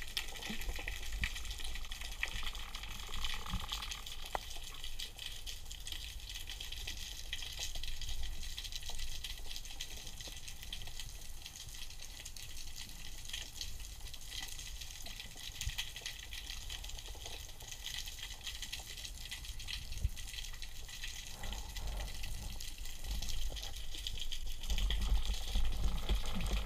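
Underwater ambience picked up by a camera in its waterproof housing: a steady crackle of many fine clicks over low water rumble, the rumble swelling near the end as the diver moves his arm toward the camera.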